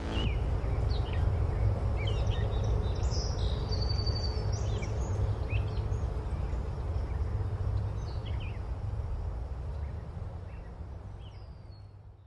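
Outdoor ambience of birds chirping over a steady low rumble, fading out over the last few seconds.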